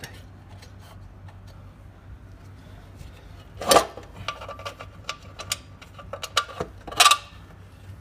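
Metal clicks and scrapes as a bolt is worked by hand into the burner's fan housing. Two louder scraping knocks come about four and seven seconds in, with a run of small clicks between them, over a steady low hum.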